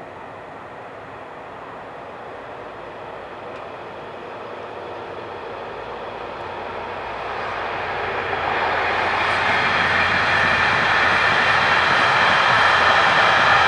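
A freight train of covered hopper wagons approaching and passing: the steady noise of its wheels on the rails grows louder and louder, rising sharply about eight seconds in, then holds at a loud, even level as the wagons roll by.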